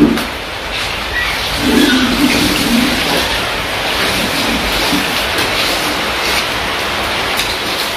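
Steady hiss of heavy rain, with a brief low voice-like sound about two seconds in.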